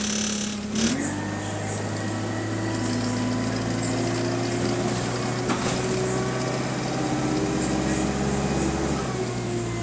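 Bus engine heard from inside the cabin: a sharp click about a second in, then the engine note rises and holds steady as the bus drives under power, falling back again near the end.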